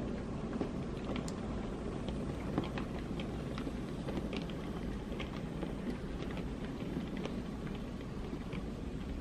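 00 gauge model steam locomotive, No. 33027, running past with a rake of coal wagons. A steady rumble of motor and wheels on track with scattered light clicks.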